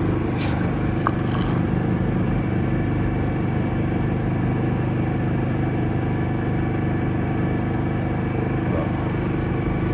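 Engine of a high-pressure drain jetter running steadily, a constant drone, with a brief rattle about a second in.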